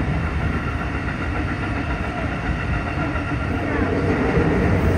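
Keikyu 1500 series field-chopper electric train running, heard from inside the passenger car: a steady rumble of wheels on the rails mixed with traction motor noise.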